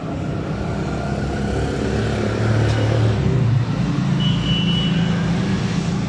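Steady low rumble of motor vehicle engines, swelling slightly in the middle, with a short high-pitched tone about four seconds in.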